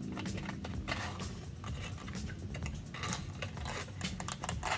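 Irregular soft taps, clicks and rustles of a cardboard peach mango pie sleeve being squeezed, shaken and picked at, with the pie stuck inside it.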